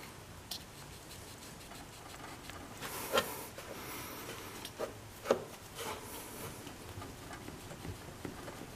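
Hands and a shop rag rubbing on a plastic diesel fuel filter as its water-in-fuel sensor is carefully worked back and forth, with a few small clicks about three to six seconds in.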